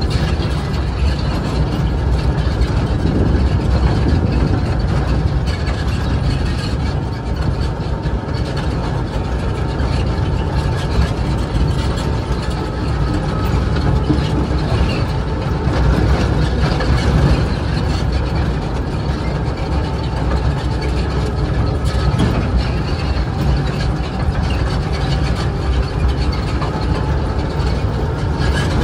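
Hokuriku Juki Kogyo narrow-gauge diesel locomotive running steadily under way, with many small clicks and rattles from the wheels and running gear on the light rails.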